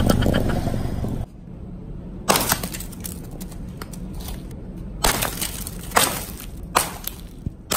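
A claw hammer striking a frozen green ball on concrete, cracking it into icy shards with several sharp blows about a second apart. The first second is a low rumble of a car tyre rolling over concrete.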